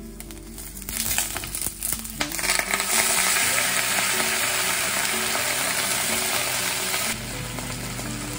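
Shishito peppers slid into hot oil in a stainless steel frying pan, sizzling with a few light knocks as they land. A few seconds in, water is poured into the hot pan and the sizzle turns into a loud, steady hiss, which drops off sharply near the end.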